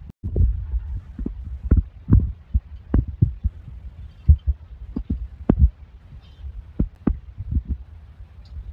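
A hand squeezing and kneading a ripe mango in a steel bowl to press out its pulp: irregular soft, low squelches and thuds, one or two a second.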